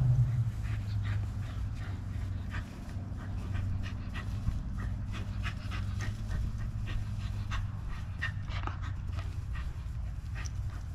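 Dog panting in quick, short breaths over a steady low hum.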